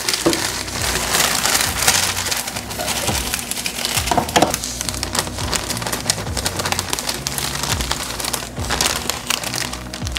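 Plastic cake-mix bag crinkling and crackling as it is squeezed and shaken to empty dry cake mix into a stainless steel mixer bowl.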